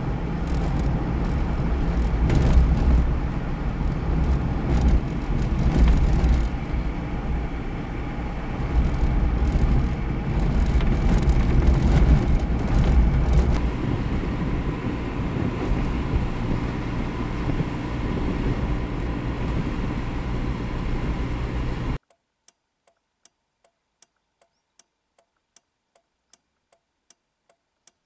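Car engine and road noise heard from inside the cabin while driving, a steady low rumble. About 22 s in it cuts off suddenly, leaving the hazard-light flasher relay ticking at about two ticks a second.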